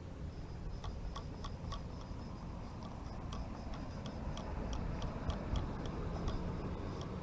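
A run of small, light clicks at uneven intervals, some in quick runs of four or five, each with a brief high-pitched ring: the buttons and switches on a hobby RC car's pistol-grip transmitter being pressed.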